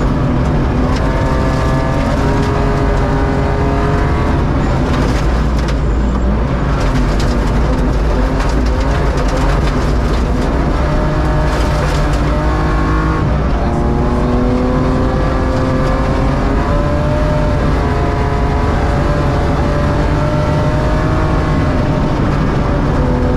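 BMW E36 rally car's engine pulling hard on gravel, heard from inside the car. The revs climb, drop at an upshift about four seconds in and again around halfway, then climb again, over steady gravel and road rumble.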